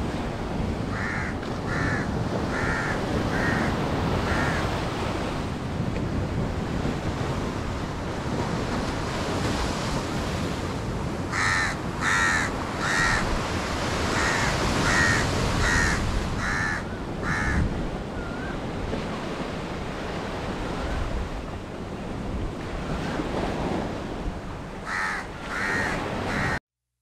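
Birds cawing in runs of short harsh calls, three bursts of about five, nine and three calls, over a steady rushing noise of wind and water. The sound cuts off abruptly near the end.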